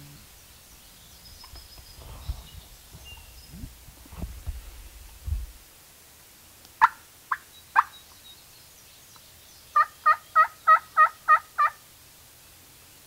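Wild turkey calling: three sharp clucks, then a run of seven yelps at about four a second.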